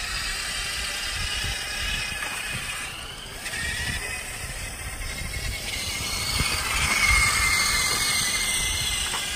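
A STACYC electric balance bike's small electric motor whining as it drives the bike along, its pitch shifting with speed, over a low rumble of tyres rolling on pavement.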